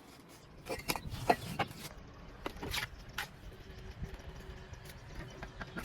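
A series of short scrapes and knocks in two quick clusters in the first three and a half seconds, like a mason's hand tools working mortar, followed by a faint steady hum.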